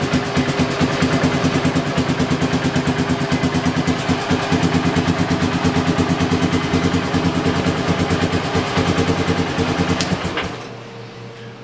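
A Polaris Sportsman 500 HO's single-cylinder four-stroke engine idling smoothly and evenly with no backfiring, its ignition timing just set after a head repair. About ten seconds in it is switched off and dies away, leaving a faint steady hum.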